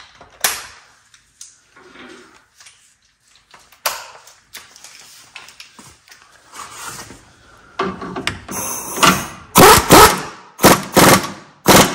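Pneumatic impact wrench tightening a 17 mm stabilizer link nut through a swivel socket, run in several short loud bursts over the last four seconds. Before that, light metallic clinks as the socket is fitted onto the nut.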